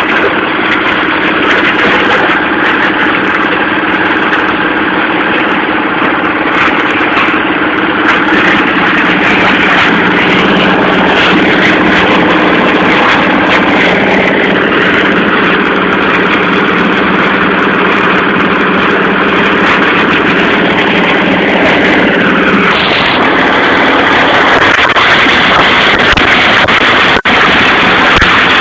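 Plastic shredder machine running, a loud steady mechanical din with a low hum that drops away about three-quarters of the way through while the din carries on.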